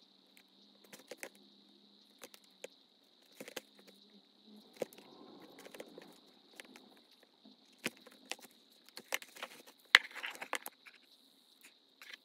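Irregular light clicks and taps of tools and leather being handled at a workbench, with a soft rustle about five seconds in and a sharper knock about ten seconds in, over a faint steady high whine.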